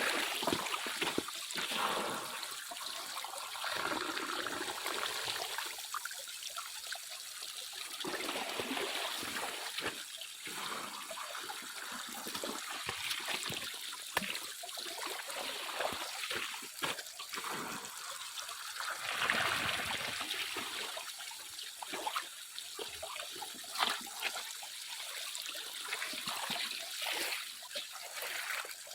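Water trickling and splashing unevenly, with many small clicks and knocks mixed in and a louder splashing stretch past the middle.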